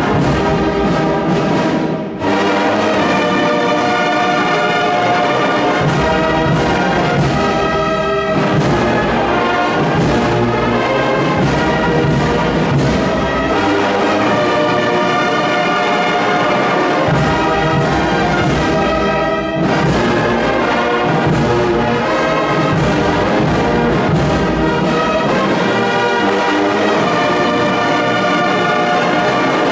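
Brass band music: a slow hymn played in sustained chords, with a few short breaks between phrases.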